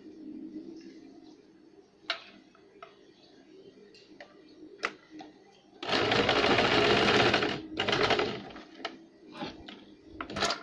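Electric household sewing machine stitching: a run of about a second and a half, a brief stop, then a shorter second run, sewing down the elastic in a trouser hem. Before and after it come fabric handling and a few sharp clicks.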